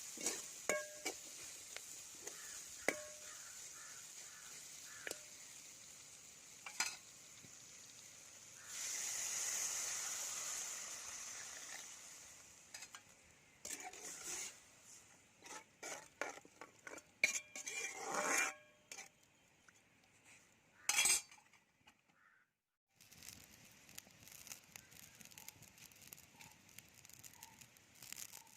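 Food sizzling in a hot pan while a metal spoon stirs, scrapes and clinks against it. The sizzle swells loudly about nine seconds in and dies down over a few seconds, then come many sharp clinks and knocks, a sudden break about three-quarters through, and fainter clinks after it.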